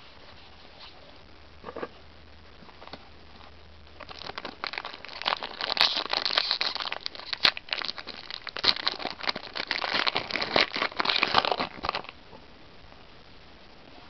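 Foil Yu-Gi-Oh booster pack wrapper crinkling and crackling as it is handled and torn open, starting about four seconds in and stopping about twelve seconds in.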